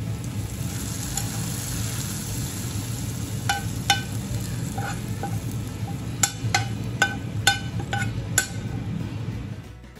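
Hot coconut-oil tempering of shallots and curry leaves sizzles as it is tipped from a frying pan into a clay pot of curry. From about three seconds in, a metal spoon scrapes and taps against the pan about a dozen times, each tap ringing briefly.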